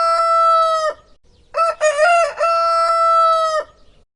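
Rooster crowing twice: the long held end of one cock-a-doodle-doo, then after a short pause about a second in, a second full crow with a few quick broken notes leading into a long steady note.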